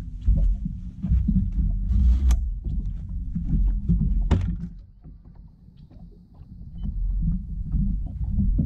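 Low, uneven rumbling and thumping around a bass boat, with sharp knocks on the deck about two and four seconds in. The rumble drops away briefly past the middle, then returns.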